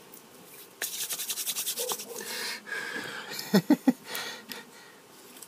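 Close rubbing or scratching right at the microphone, a rapid scratchy rubbing lasting about two seconds. Just after the middle come three short, low vocal sounds.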